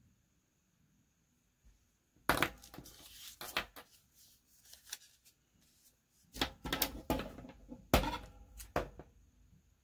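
Paper being handled: crackling and rustling in two bursts, one about two seconds in and a longer one from about six to nine seconds in.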